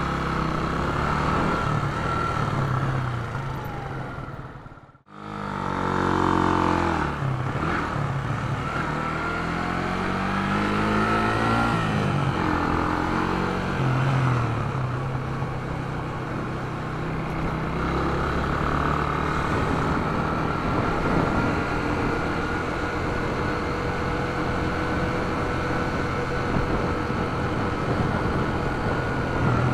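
Yamaha YB125SP's single-cylinder four-stroke engine running while riding, heard from the handlebars. The engine pitch climbs as it accelerates, around six seconds in and again around twelve seconds in. The sound drops out briefly about five seconds in.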